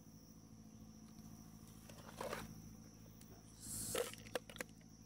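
A few brief rustles and a hiss with several sharp clicks over a faint steady hum: handling noise.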